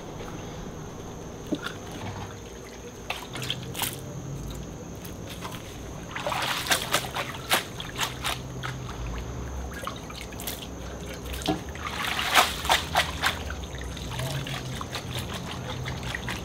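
Hot lard and pork juices dripping and splashing back into a copper carnitas pot as chunks of boiled pork are lifted out with a wire mesh strainer basket. The splashing comes in two busier spells, about six and twelve seconds in, over a steady low hum.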